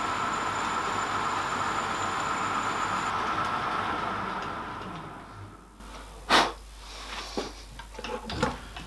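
Metal lathe running with a steady whine, then winding down to a stop about four to five seconds in. A sharp knock comes about a second later, followed by a few lighter clicks.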